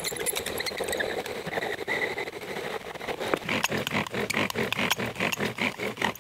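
Bow drill being worked: the cedar spindle squeaks and squeals in a quick, even rhythm of back-and-forth bow strokes, several a second. Much of the friction is at the dry top bearing block rather than on the fire board.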